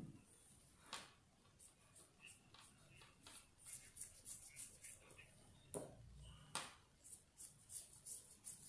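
Near silence with faint scattered ticks and soft taps from a paintbrush working over a clay-covered bottle; a few slightly louder clicks come about a second in and again around six and a half seconds in.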